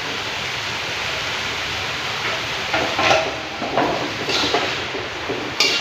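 Steady hiss of pumpkin leaves cooking in boiling water in a metal wok, with a spatula scraping and knocking against the wok a few times from about two seconds in as the leaves are stirred.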